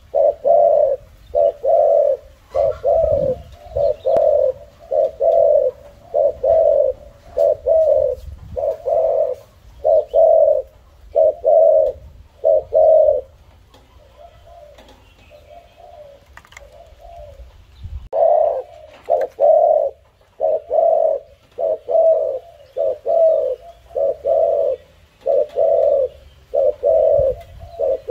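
Spotted dove cooing in a long series of short, low coos, about one and a half a second. The coos fade for a few seconds about halfway through, then pick up again.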